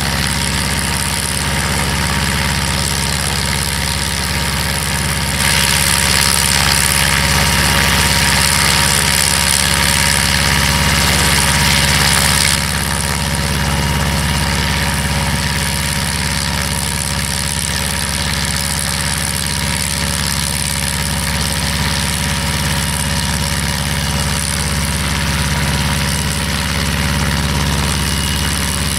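Brantly B-2B helicopter's four-cylinder Lycoming piston engine idling steadily on the ground during the warm-up before takeoff. About five seconds in it grows louder with added hiss for some seven seconds, then settles back.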